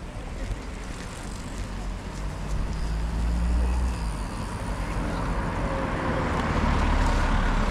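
Road traffic: a car's engine and tyres passing close by, a low rumble that grows louder toward the end.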